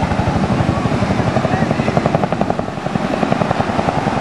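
Boeing CH-47 Chinook's tandem twin rotors beating in a fast, even thud of blade slap, about eleven beats a second, easing slightly after about two and a half seconds.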